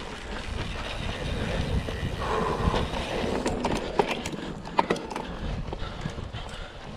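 Mountain bike ridden over rough trail: tyres and bike rattling with scattered sharp knocks and clicks, over a steady rumble of wind on the camera microphone.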